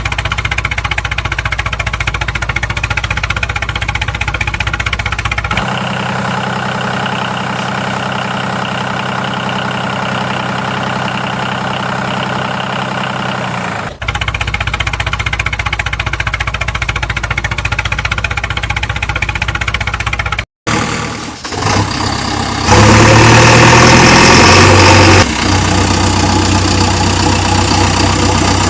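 Vehicle engine running steadily, in several spliced segments whose pitch and loudness change abruptly. There is a brief dropout about two-thirds of the way in, and a louder stretch after it.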